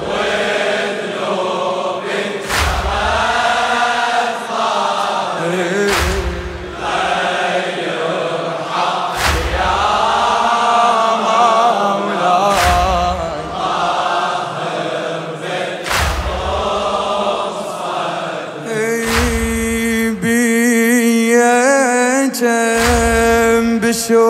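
Male congregation chanting a latmiya refrain in unison, with a heavy collective chest-beating strike about every three seconds. In the last few seconds the group chant gives way to a steady held drone under a single wavering solo voice.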